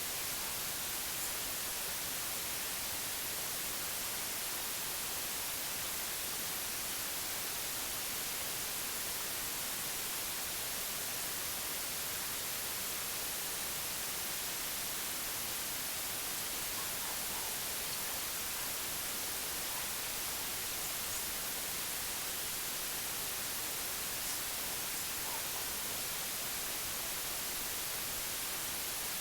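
Steady hiss of synthetic white noise, even and unbroken, with most of its energy in the high end.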